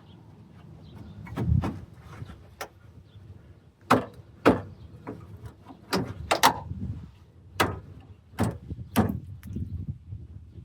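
Irregular knocks, clicks and clunks, about a dozen of them spread unevenly, from hands and tools working on a truck's engine wiring and ground connections under the hood.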